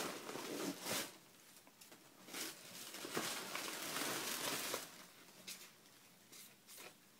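Hands rummaging through packing material in a box, bubble wrap and polystyrene chips rustling and crinkling in several bursts, the longest lasting nearly two seconds.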